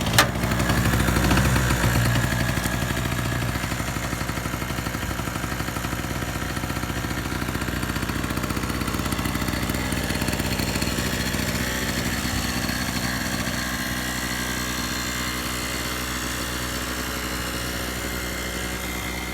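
Harbor Freight Chicago Electric 800-watt generator's small two-stroke engine catching on a cold pull-start and running steadily. Loudest for the first couple of seconds, then it settles to an even level.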